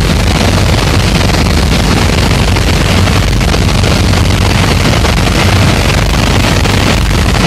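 Piper PA-28-161 Warrior's four-cylinder Lycoming engine and propeller droning steadily under a hiss of rushing air, heard inside the cabin, in the climb-out of a go-around.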